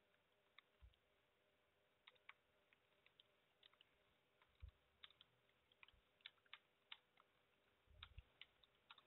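Faint typing on a computer keyboard: irregular key clicks, a few keystrokes heavier than the rest.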